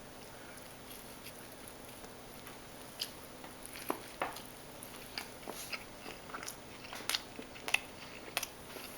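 A person chewing a mouthful of food, with soft, irregular mouth clicks and smacks from about three seconds in.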